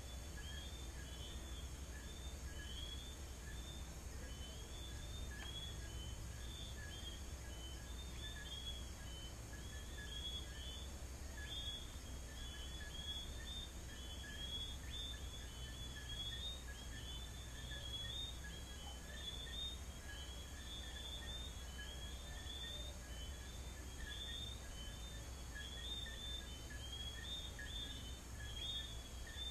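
Night chorus of many small whistling frogs (the Caracas "sapitos", Johnstone's whistling frogs) giving short, high, rising whistled chirps that overlap continuously, with a steady insect trill from crickets behind them and a low hum underneath.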